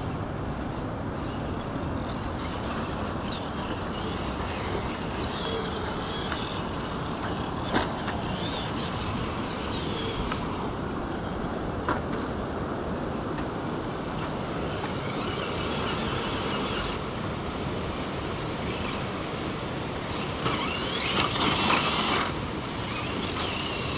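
Steady rush of river shoals, with a Traxxas TRX-6 6x6 RC crawler's electric motor and gears whining on and off as it crawls over rock, and a couple of sharp knocks. Near the end the motor whine gets louder for about two seconds as the truck is run in second gear.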